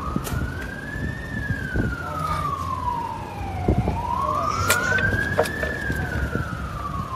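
A siren wailing, its single tone rising and falling slowly, about once every four seconds, over a low rumble, with a few sharp knocks.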